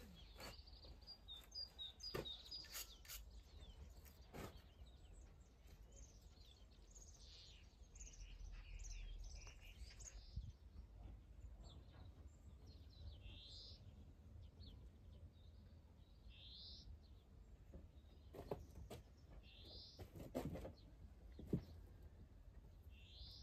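Faint birds chirping and calling, with a few sharp knocks and clicks of stones being set into a dry-stone wall.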